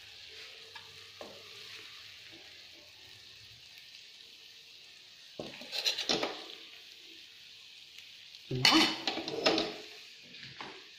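Short bursts of scraping and clattering as a serving plate is handled, about five and a half seconds in and again, louder, near nine seconds, over a faint steady hiss.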